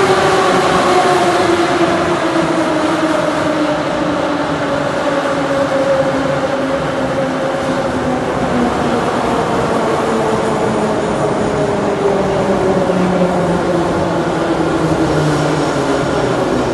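81-717/714 metro train pulling into the station and slowing, its traction-motor whine falling steadily in pitch over the rumble of the wheels on the rails.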